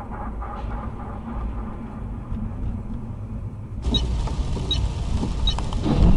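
Car engine and road noise from inside a moving car, a steady low rumble. About four seconds in the recording changes, and a regular tick starts about every 0.8 seconds. Near the end comes a loud low thump.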